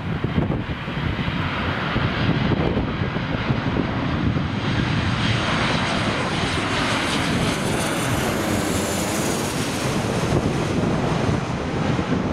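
Landing airliner passing low overhead on final approach: its engine noise builds, and then its whine falls in pitch as it goes by.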